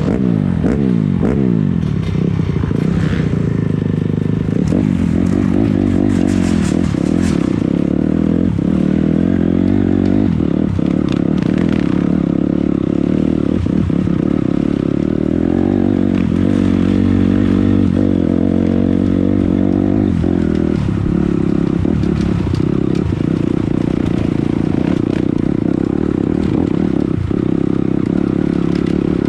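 Dirt bike engine running under load on a rough trail, its pitch falling off at the start and then rising and dropping as the throttle is worked, with scattered knocks and clatter from the bike over rough ground.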